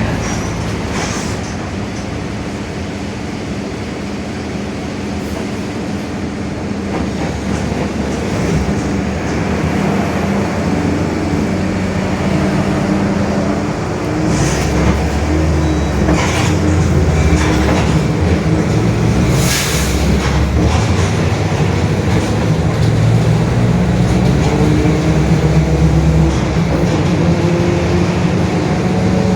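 Mercedes-Benz OF-1721 BlueTec 5 city bus under way: diesel engine running with a droning growl from the differential, getting louder and shifting in pitch about halfway through. A few sharp knocks or rattles come through in the middle.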